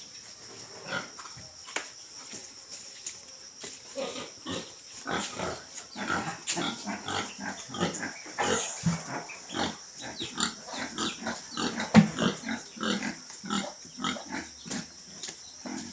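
Pigs grunting, many short overlapping grunts that get busier about four seconds in, over a steady high-pitched hiss. One sharp knock about twelve seconds in.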